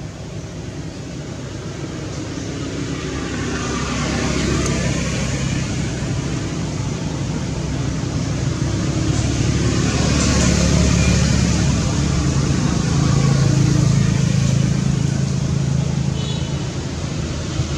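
A vehicle engine running with a steady low hum, growing louder over the first few seconds and staying strong.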